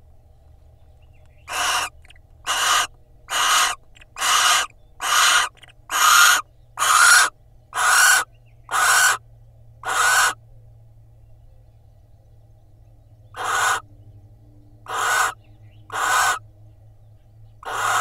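Barn owl giving a series of short, rasping, hiss-like calls, about one a second, each around half a second long. About ten come in a row, then a pause of a few seconds, then four more.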